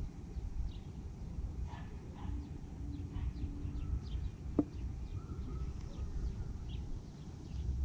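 Outdoor ambience: a steady low rumble with many faint, short animal calls scattered through, and a single sharp click about halfway.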